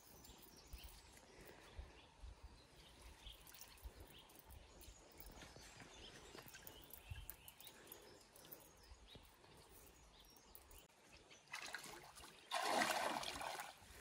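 Faint river water trickling, with small ticks. About twelve seconds in, a louder rush of water splashing lasts a second or two.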